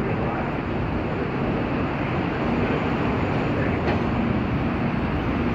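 Steady low hum and rumble of an airport people-mover station, with the automated train standing at the platform, doors open, and one light click about four seconds in.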